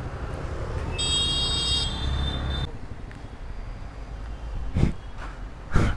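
Bajaj Dominar 400's single-cylinder engine idling with a steady low rumble. About a second in, a high horn-like tone sounds for under two seconds and cuts off suddenly. Near the end come two short thumps.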